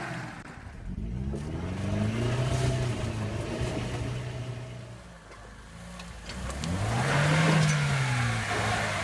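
Off-road 4x4 engine revving in two surges. The pitch climbs and falls off each time, the second surge peaking near the end.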